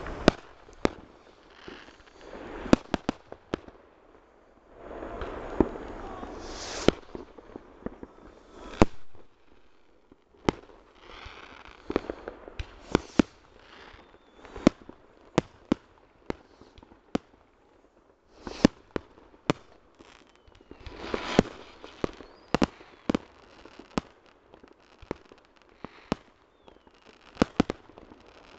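New Year's fireworks: rockets and firecrackers going off, many sharp bangs at irregular intervals, some in quick runs, with hissing and crackling between.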